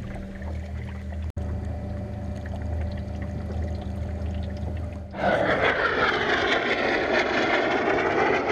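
Electric trolling motor humming steadily. About five seconds in, a much louder engine noise from a passing craft comes in as a whooshing rush whose tone slowly sweeps up and down.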